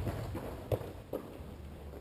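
Two light knocks on the futsal court in a reverberant sports hall, the first a little under a second in and the second just after, following the fading boom of a heavier thud at the start.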